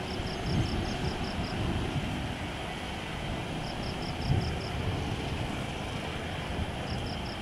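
Steady, distant rumble of a twin-engine widebody jet airliner's engines as it comes in on final approach with gear down. Short runs of high, rapid chirps repeat three times over it.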